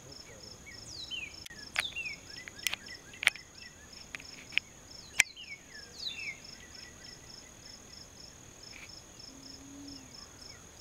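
A steady insect chorus: a high buzz with a pulsing trill about three times a second. Birds give short falling chirps over it, and a few sharp clicks stand out in the first half.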